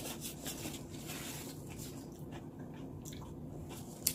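Close-miked mukbang eating sounds: wet chewing and small mouth noises while eating. Near the end comes a single sharp click of a fork against the plate.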